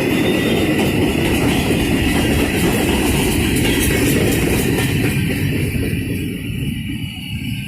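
A train rolling past close by, its wheels and cars rumbling with faint rapid clicking. The noise begins to die away about six seconds in as the train moves off.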